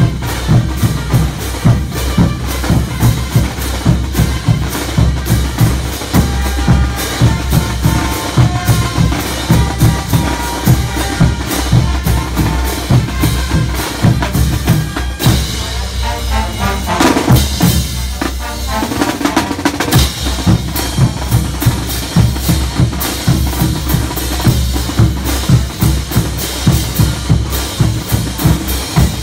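Marching percussion band of bass drums, snare drums and hand cymbals playing a steady, driving beat. The low drum strokes thin out for a few seconds around the middle, then come back in.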